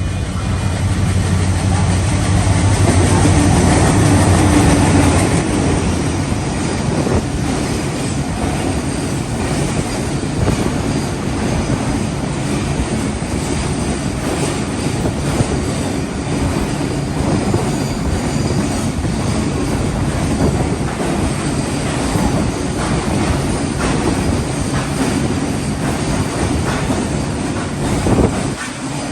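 Diesel-hauled goods train passing at speed. The locomotive's steady low engine hum is loudest in the first five or six seconds. A long run of freight wagons follows, rattling and clicking over the rail joints.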